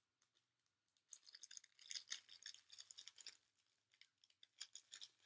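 Small plastic bag crinkling and rustling in the fingers as it is opened to get a pin out. A dense run of crackles lasts about two seconds, then a few more come near the end.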